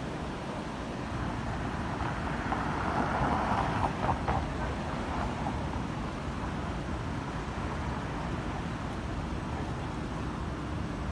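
Steady low rumble of vehicle engines and street traffic, with a louder stretch of noise about two to four seconds in and a couple of short clicks near its end.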